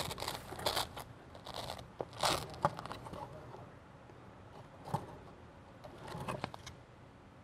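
Boxes and packages being handled and shifted on a metal warehouse shelf: a series of short rustles, crinkles and light knocks, mostly in the first three seconds and again around five and six seconds in.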